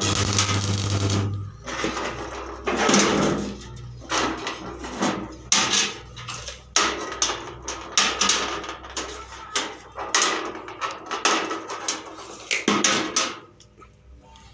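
Steel gate fabrication in a workshop: irregular bursts of crackling, clattering metalwork noise, with a low electrical hum under the first second or so.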